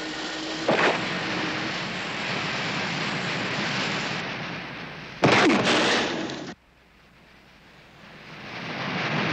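Cartoon sound effects of water-skiing at speed: a loud, steady rushing hiss with a brief burst about a second in. About five seconds in comes a loud crash with a falling whistle, which cuts off abruptly a second later; near quiet follows, then a noise that gradually swells again.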